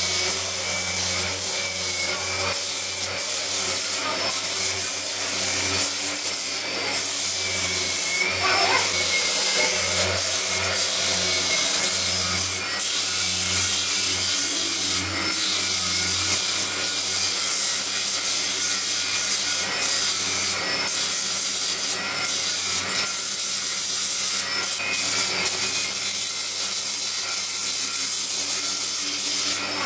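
Electric sander running steadily, its motor humming under a continuous scratchy rubbing of material against the abrasive.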